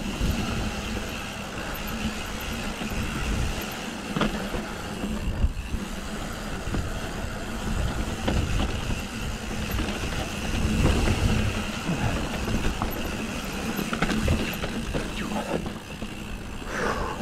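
Mountain bike descending a dusty dirt trail: wind rushing over the microphone and tyres rumbling on the dirt, with the bike rattling and an occasional sharp knock over bumps.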